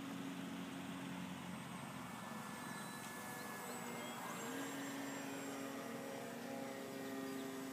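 Electric motor and propeller of a Parkzone T-28 Trojan RC park-flyer droning steadily in flight, rising in pitch about halfway through.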